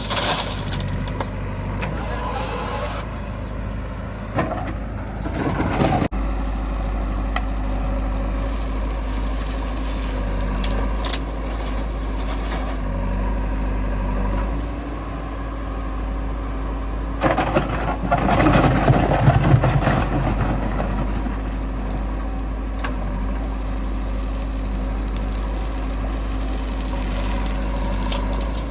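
Diesel engines of heavy machinery (a backhoe loader and farm tractors) running steadily, with a louder, rougher stretch of working noise between about 17 and 20 seconds in.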